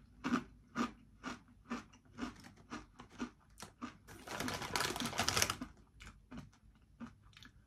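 Crunchy chewing of Doritos tortilla chips, about two crisp crunches a second that grow fainter. For a second or two midway the crisp packet rustles as a hand reaches in for another chip.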